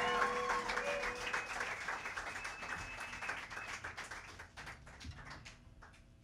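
Audience clapping after a song ends, the applause thinning to scattered claps and dying away.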